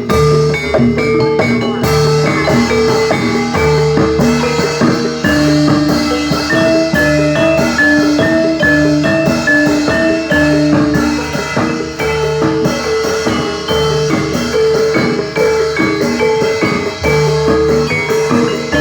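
Javanese gamelan music accompanying a jathilan horse dance: tuned metal mallet instruments play a looping melody of short repeated notes over drumming.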